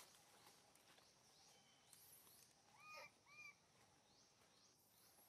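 Quiet outdoor ambience, near silence, with faint repeated high chirps and two short arching calls about three seconds in.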